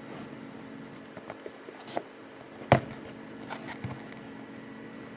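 A small product box being opened and its packaging handled: a few light clicks and taps, the sharpest about two and a half seconds in, over a faint steady hum.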